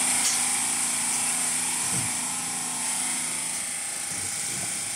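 4D HIFU handpiece running as it fires treatment lines: a steady mechanical whirring hiss with a faint wavering whine.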